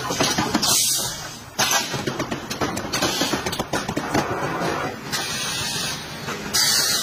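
Pneumatic hole-punching station on a plastic car bumper at work: bursts of compressed-air hiss as the cylinders vent, over quick mechanical clicks and clatter.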